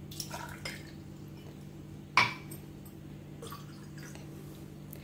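Water being poured from a small drinking glass into a tall glass, with light glassy ticks and one sharp ringing clink of glass on glass about two seconds in.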